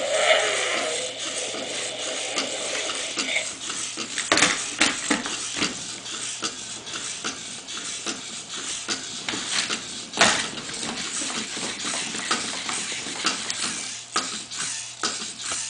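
Roboreptile toy robot walking on a wooden floor: its motor running and its plastic legs clicking and clattering in quick irregular steps, with two louder knocks, about four and ten seconds in. It opens with a short electronic growl that falls in pitch.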